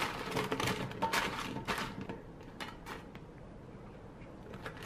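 Tongs tossing baby corn and green beans in a parchment-lined air fryer basket: a quick run of clicks, scrapes and paper rustling in the first two seconds, thinning to a few soft clicks.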